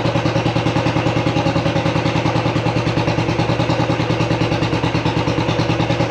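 Royal Enfield single-cylinder motorcycle engine idling steadily with an even, rapid beat.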